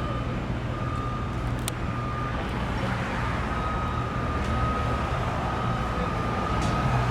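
Heavy construction machinery running at a steady low drone, with a high electronic alarm tone from the equipment sounding in long stretches broken by short gaps.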